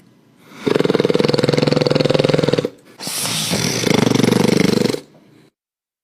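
Two long, rattling monster growls, each about two seconds long; the second starts about three seconds in and wavers in pitch.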